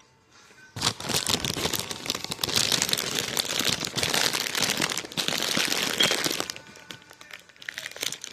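Skinny Pop popcorn bag crinkling as it is handled: a dense stretch of crackling starts about a second in and thins out near the end.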